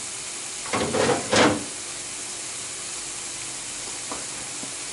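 Butter sizzling in a hot pan with the pasta, a steady hiss, with a few short stirring or scraping strokes about a second in.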